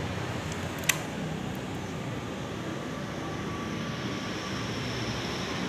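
A single sharp click about a second in, the motorcycle's ignition key switch being turned on, over a steady background hum.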